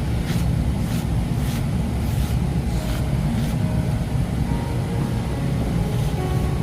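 Brush strokes, a short hiss repeating about every two-thirds of a second, over a steady low rumble.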